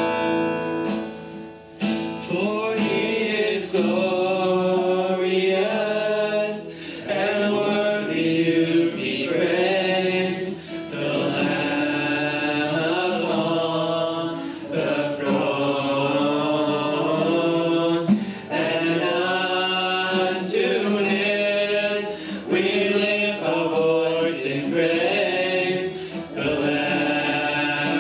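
A man singing a slow worship song at a microphone while strumming an acoustic guitar, with a short pause between phrases about a second and a half in.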